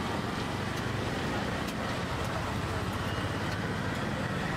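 Steady low rumble of road traffic and engines, with a few faint light clicks.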